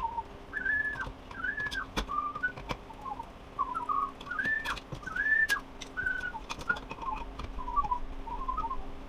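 A man whistling a wandering tune in short rising and falling phrases, with scattered clicks and taps from tools and wiring being handled.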